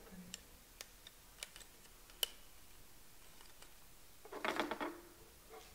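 Faint, scattered clicks and ticks of plastic drinking straws and thin craft wire being handled as the wire is threaded and twisted, with a brief louder sound about four and a half seconds in.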